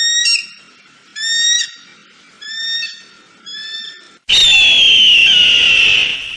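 Eagle calling: four short, high chirps about a second apart, then a long, loud, harsh scream a little past four seconds in that slowly falls in pitch.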